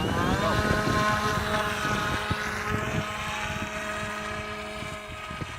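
Electric motors and propellers of a small flying model whining up in pitch as it throttles up, then holding a steady whine that slowly gets quieter. Wind buffets the microphone.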